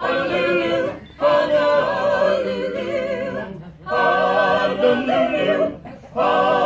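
A small group of men and women singing a number from a stage musical comedy together live, in sung phrases with short breaks between them.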